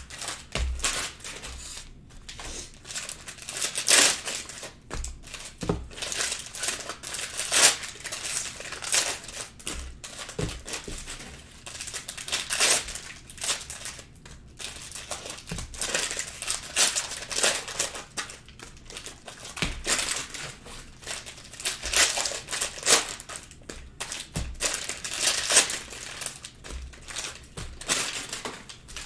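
Foil sports-card pack wrappers crinkling and tearing as they are ripped open and handled, in irregular flurries.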